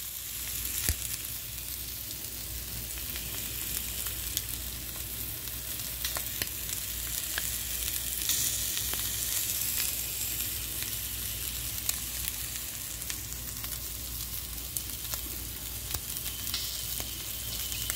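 Shrimp frying in oil in a pan: a steady sizzle with scattered small pops and crackles.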